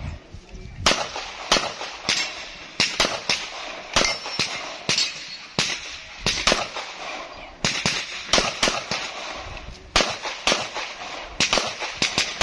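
Pistol shots fired in quick succession, over a dozen sharp cracks with short gaps between strings, some fired close together in pairs.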